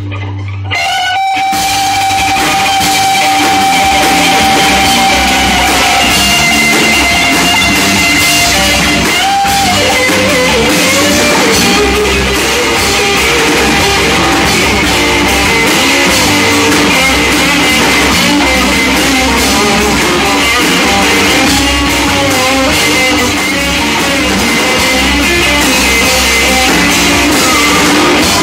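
Rock band playing live on electric guitars and a drum kit, loud. A lead guitar holds one long note for the first several seconds, then moves into a run of changing notes over the drums.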